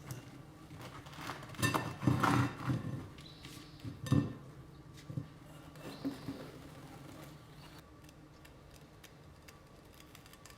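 Irregular knocks and clatter of a container and tools being handled, loudest in a cluster about two seconds in and a sharp knock about four seconds in, then fading to light rustling.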